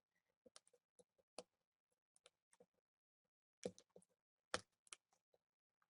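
Faint, scattered small clicks and ticks from fingers working the clear tape over a laptop LCD's delicate cable connector, with two louder clicks a little past the middle.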